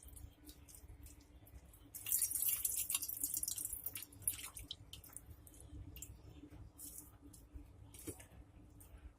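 Juice trickling and dripping from a handful of grated ginger squeezed by hand, heaviest about two to four seconds in, then scattered drips and small wet clicks.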